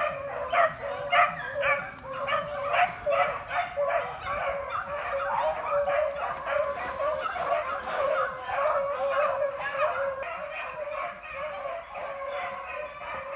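A pack of beagles baying in an overlapping chorus, barks coming several times a second without a break, as they run a rabbit on its track.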